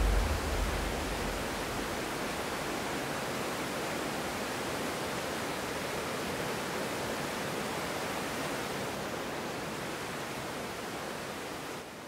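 Waterfall and rocky creek cascade rushing steadily. A low rumble fades out in the first second, and the rush drops a little in level near the end.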